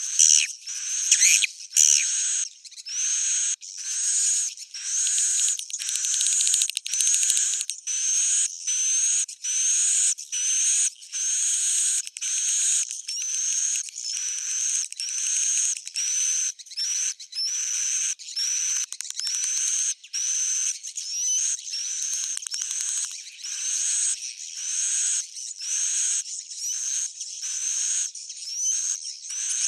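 Recorded swiftlet calls: a fast, steady series of short, sharp chittering chirps, about one and a half a second, each with a rising squeak. This is the old-style swiftlet lure call played in swiftlet houses to draw the birds in to roost.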